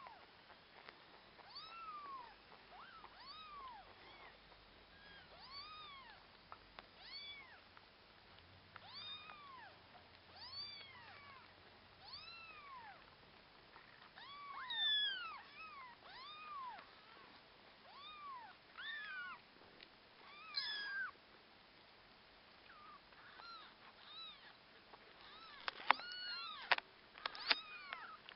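Very young kittens mewing over and over, thin cries that each rise and then fall in pitch, about one every second or so. A few sharp clicks come near the end.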